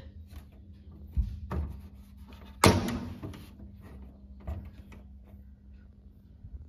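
A few plastic clicks and knocks as the front panel and grille of a split AC indoor unit are pressed onto their hooks. The loudest snap comes about two and a half seconds in.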